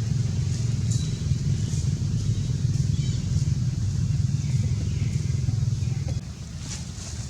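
Low, steady rumble of a motor vehicle's engine, easing off about six seconds in.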